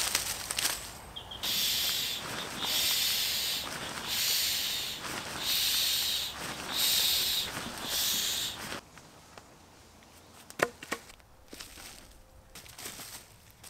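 Camping gear being packed: a run of about six regular rustling swishes, then quieter handling with one sharp click near the end.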